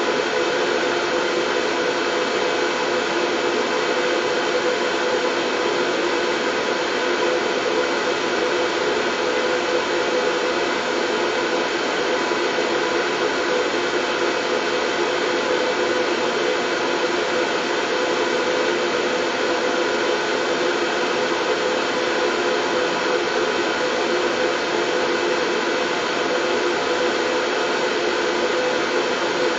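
Steady white noise for lulling colicky babies to sleep: an even, unbroken hiss with a faint steady hum running through it.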